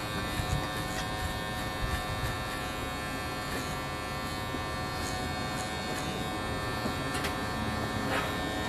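Wahl Magic Clip hair clipper running with a steady buzz while cutting a taper along the side of the head above the ear.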